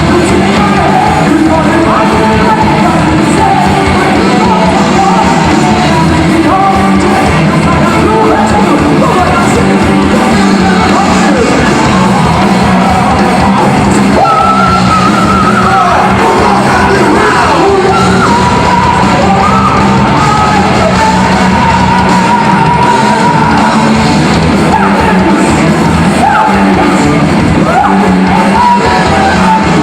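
Heavy metal band playing live: distorted electric guitars, bass and drums with a lead vocal that holds long high notes through the second half.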